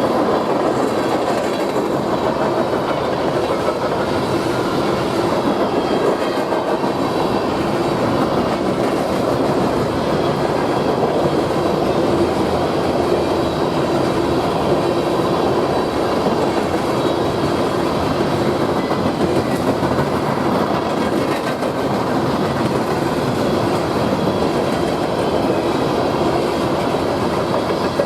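A train's cars rolling steadily past, wheels clicking over the rail joints.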